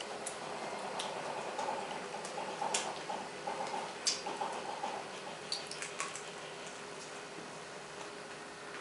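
Faint, quick little clicks and squeaks from a white-tailed prairie hare leveret suckling formula from a syringe, over steady room hiss. A few sharp ticks are scattered through the first half.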